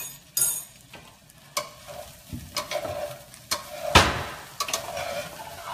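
Chicken frying in hot coconut oil, a steady sizzle, with a metal fork clicking and knocking against the pan and a glass plate several times as pieces are lifted out; the loudest knock comes about four seconds in.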